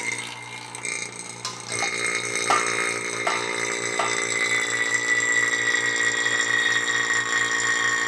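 An electric refrigeration vacuum pump switches on and runs steadily with a regular low pulsing, growing louder about two seconds in. A few light clicks sound over it. It is evacuating the boat fridge's refrigerant circuit through a gauge set as a vacuum leak test on freshly soldered joints.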